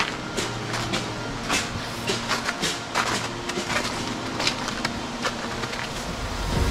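Footsteps crunching on snow, an irregular series of short crunches, over a steady low hum; a louder low rumble builds near the end.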